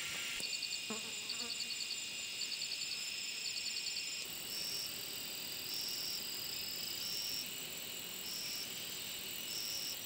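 Insects chirping in a high register: quick trains of rapid pulses in the first few seconds, then a steadier high buzz with longer chirps about once a second.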